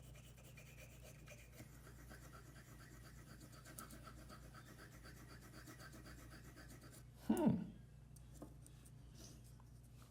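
Tin solder wire drawn across paper like a pencil, a faint scratching and rubbing. About seven seconds in comes a brief, louder vocal sound that falls in pitch.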